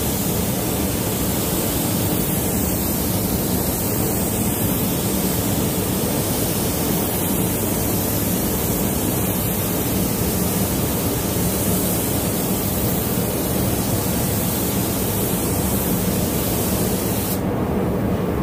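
Air spray gun (Weta, 1.3 nozzle at 1.8 bar) hissing steadily as it atomizes matte clear coat. The high part of the hiss cuts off abruptly about a second before the end, leaving a lower steady noise.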